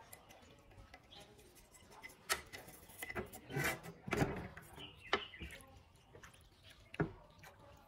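Toothbrush scrubbing a glass lamp globe in a tray of soapy water, with soft scratchy brushing and water movement. A handful of sharp clicks and knocks break in, the loudest a little after four seconds and again at seven seconds.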